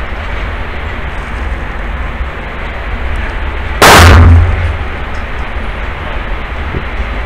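A single loud pistol shot about four seconds in, with a short echoing ring-out in the indoor range, over a steady background hiss.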